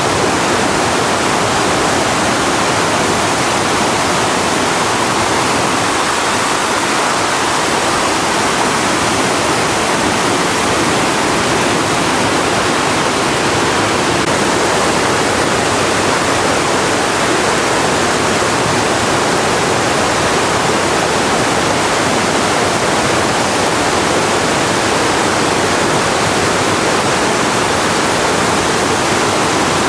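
Loud, steady rush of Mae Klang Waterfall's cascading water, an unbroken roar with no let-up.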